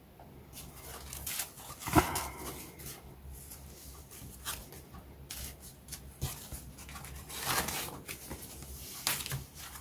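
Thin foam packing sheet rustling and crinkling as it is peeled off a plastic model-kit sprue, with scattered light crackles and a sharper one about two seconds in.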